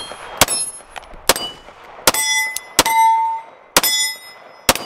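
Six pistol shots fired at a steady pace of about one a second, each a sharp crack. Several are followed by the ringing of steel plate targets being hit, clearest after the middle shots.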